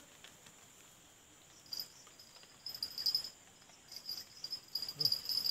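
Insects chirring in high-pitched pulsed trains, starting about two seconds in and growing louder, with a brief low sound near the end.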